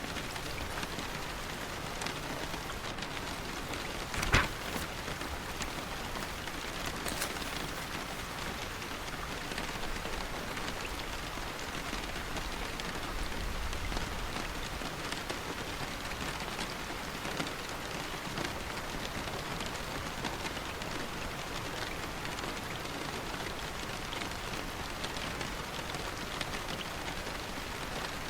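Steady rain falling on a surface, a dense even hiss with many small drop ticks. A brief, louder sudden sound stands out about four seconds in, and a fainter one about seven seconds in.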